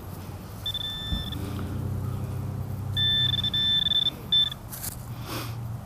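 Handheld metal-detecting pinpointer probe beeping as it is pushed through loose soil near a buried coin: a short steady tone about a second in, then a longer broken run of beeps around three seconds in and a brief one soon after, the tone showing the target is right at the probe tip. A low rustle of gloved hands working the dirt runs underneath.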